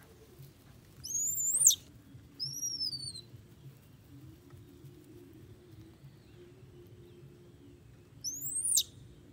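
A young pet monkey giving three shrill squealing calls: two that rise and then drop sharply, one a little after the start and one near the end, and a shorter falling squeal between them.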